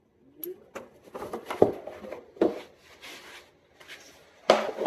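Scattered light clicks and knocks of hands working a quarter midget's winged Dzus fasteners and body panel, with a louder rustle near the end.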